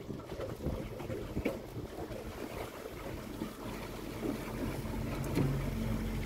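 Wind and water noise on a small fishing boat at sea. From about halfway a boat engine's low steady hum comes in and grows louder.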